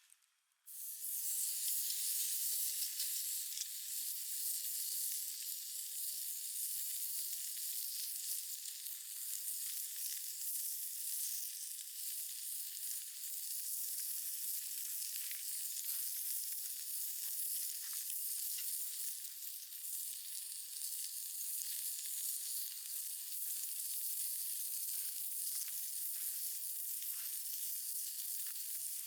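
Meat sizzling on a jingisukan (Genghis Khan) grill pan over a wood fire: a steady, dense sizzle that starts abruptly about a second in, with small crackles through it.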